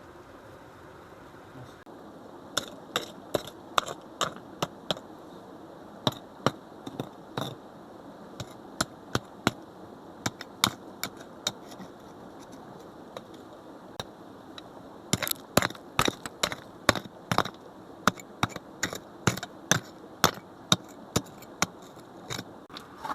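Repeated sharp strikes, coming in uneven runs of about two or three a second, with a lull in the middle and a denser, louder run in the second half.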